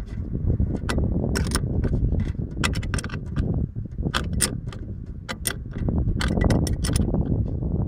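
Ratchet wrench clicking in short irregular runs as it tightens the clamp bolt on a battery terminal, over a steady low rumble.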